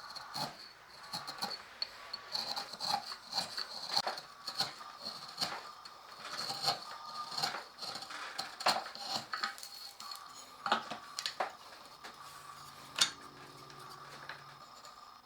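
Irregular clicks, taps and scrapes of hand-tool work on a knife handle; a low steady hum comes in near the end.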